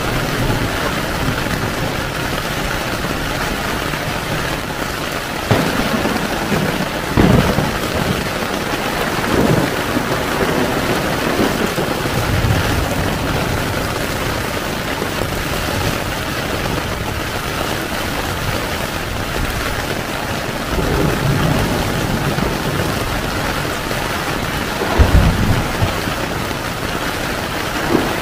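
Heavy rain falling steadily on a tent, a constant dense hiss, with low rolls of thunder rumbling several times, the loudest about 7 seconds in and about 25 seconds in.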